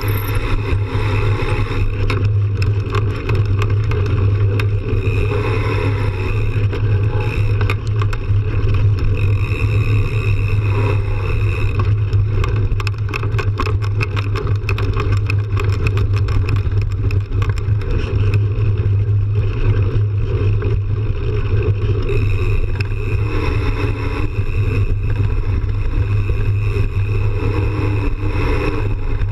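Mountain bike rolling fast over a dirt trail, heard through a bike-mounted action camera: a steady loud rumble of wind buffeting and tyre on dirt, with bursts of rattling clicks over rough ground, thickest in the middle stretch.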